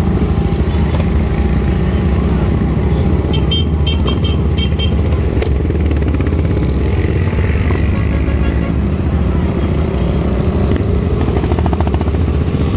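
Motorcycle engine running steadily, with a heavy low rumble.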